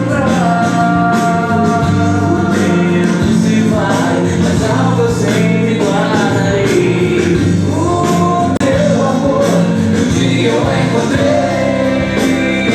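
Gospel song with singing voices over guitar accompaniment.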